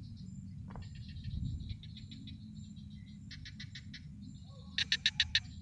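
Night chorus of crickets and other insects chirping, with two short trains of rapid pulsed calls in the second half, the second one louder. A low steady rumble runs underneath.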